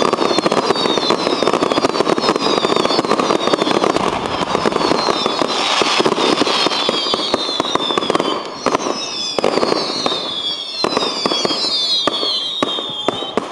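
Fireworks finale barrage: a dense, continuous rattle of bangs and crackling, with many overlapping whistles falling in pitch. After about eight seconds the bangs thin out into separate cracks.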